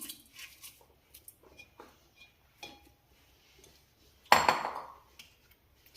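Metal spoon clinking faintly against a pressure cooker while rice is spread inside it, then one louder clatter about four seconds in.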